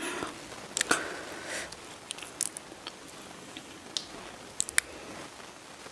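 Close-miked eating sounds: wet, crunchy chewing of sour bilimbi (belimbing wuluh) fruit in spicy rujak sauce. A few sharp crackly crunches and clicks come through, the loudest about a second in, with two more near the end.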